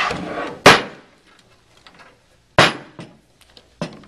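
Hard plastic parts of a Wilden P800 air-operated diaphragm pump knocking as the center section is handled and set onto the liquid chamber: a short rustle, then two loud knocks about two seconds apart and a lighter one near the end.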